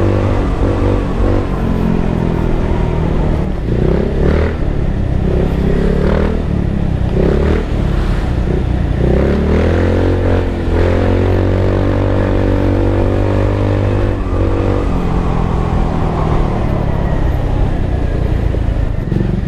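Single-cylinder GY6 125 cc four-stroke scooter engine, fitted with a 24 mm D-type carburettor and a pipe exhaust, pulling under throttle while riding. Its pitch rises and falls several times as the rider opens and eases the throttle, with a longer climb and hold past the middle before it drops back.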